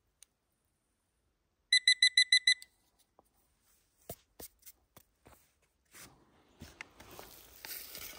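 Electronic beeper sounding a rapid run of about seven short, high, identical beeps in under a second. A few light knocks follow, then rustling that grows louder near the end.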